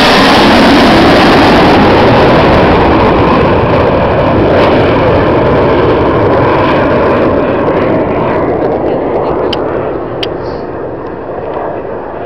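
BAE Hawk T1 jet with a single Adour turbofan flying past low. Its loud engine noise peaks about a second in and fades steadily over the following seconds as it flies away.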